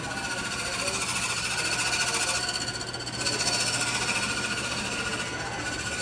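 A fast, steady mechanical rattling or buzzing that eases briefly about three seconds in and then picks up again, over a steady low hum.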